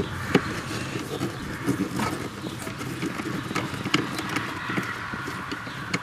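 A hand screwdriver backing out 8 mm screws from a plastic heater-core cover, making scattered light clicks and scrapes of the tool and screw against the plastic. A few sharper taps come about a third of a second in, at about two seconds and at about four seconds.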